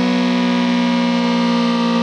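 ACA Screamer S-10 electro-mechanical outdoor warning siren sounding a loud, sustained tone that drifts slightly lower in pitch.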